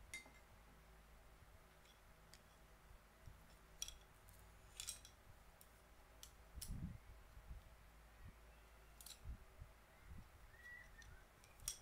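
Quiet room with a few faint, scattered clicks and soft taps as wooden chopsticks are set down across the rim of a ceramic ramen bowl.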